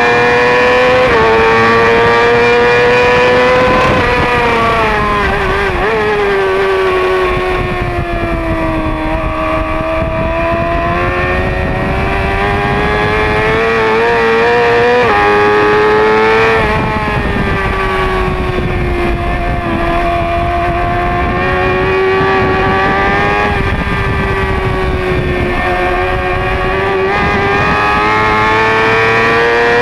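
Yamaha race motorcycle's engine running hard at high revs, heard from on board the bike, over steady wind rush. The pitch sags slowly through long corners, jumps up suddenly about halfway through as a gear is changed, then climbs again and steps down with a gear change right at the end.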